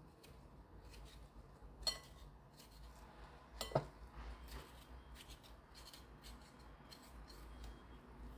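Metal spoon scraping seeds and stringy pulp out of a kabocha squash wedge, faintly, with two sharp clinks of the spoon about two and nearly four seconds in.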